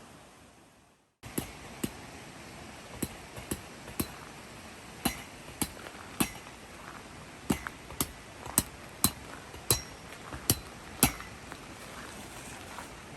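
Hammer driving metal tent pegs: about fifteen sharp, ringing blows in an uneven rhythm, some in quick pairs, starting after a short silence.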